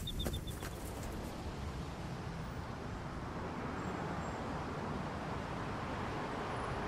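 Road traffic: a steady hiss of passing vehicles that slowly grows louder.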